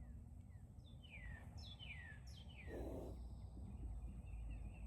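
Outdoor birds calling: several sharp chirps that slide quickly downward in pitch, clustered in the first half, over a steady low rumble. A brief soft rustle about three seconds in.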